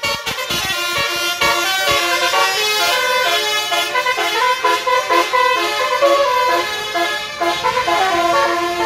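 Tour bus's basuri melodic horn playing a tune: a quick run of stepped notes, several a second, with brief breaks between phrases.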